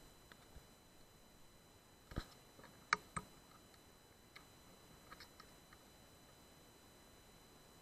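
A few faint, short clicks and taps over near silence, the loudest about three seconds in, with a few weaker ticks a little later.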